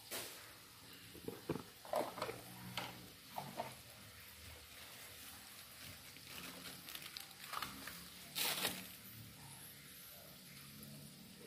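Faint hiss of a spiced broth cooking in an aluminium wok, with scattered soft clicks and knocks. There is a louder rustling noise about eight and a half seconds in.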